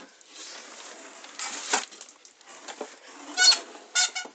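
Hands handling and unpacking a small glass vivarium: soft rustling and a knock, then two short high squeaks, one about three and a half seconds in and one near the end.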